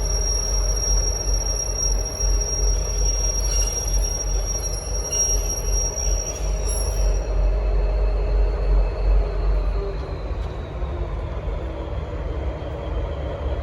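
Three coupled V/Line N class diesel locomotives with EMD two-stroke engines moving on the track, giving a steady low rumble. Over it a high, steady wheel squeal rings until about seven seconds in, then stops.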